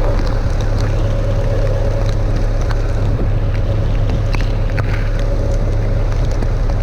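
Fishing boat's engine running steadily under way, a constant low drone with a steady whine above it, with wind and water noise.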